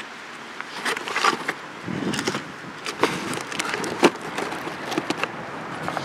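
Irregular crunching footsteps on a stony shore, with sharp clicks among them.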